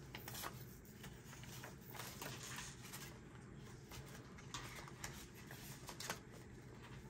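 Faint rustling of paper banknotes being handled and slid into a cash envelope in a ring binder, with scattered soft crinkles and light taps.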